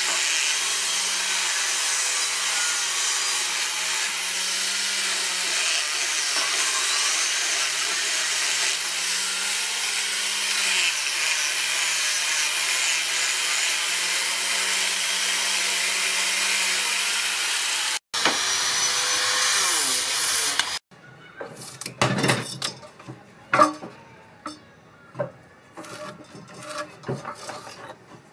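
Angle grinder with a sanding disc sanding a wooden frame: a steady high hiss over the motor's hum, which wavers in pitch as the disc is pressed on the wood. It stops about eighteen seconds in. A few seconds later come irregular scrapes and knocks of hand work on a wooden board.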